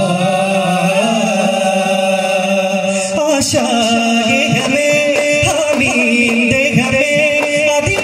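Daf muttu: a male voice singing a chant-like song through the PA, joined about three seconds in by daf frame drums struck together in a steady beat, roughly three strikes a second, under the continuing song.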